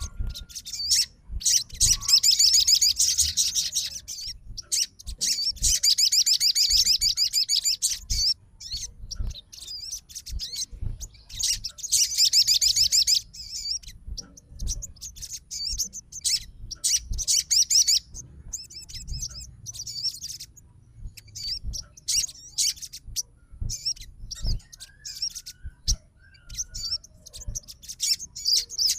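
A sogon bird singing a rapid, high chattering song: long bursts of a couple of seconds each in the first half, then shorter broken phrases. It is the fighting male's call that challenges rivals.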